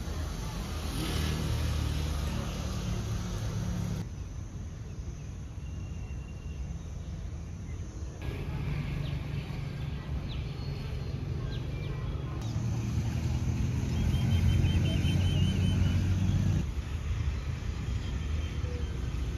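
Diesel train engine running with a steady low rumble and hum, its loudness and tone changing abruptly every few seconds. A brief run of faint high chirps comes about two-thirds of the way through.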